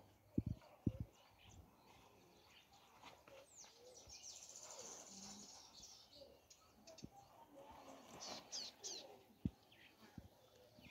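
Birds chirping and twittering, with a few sharp clicks near the start and again near the end.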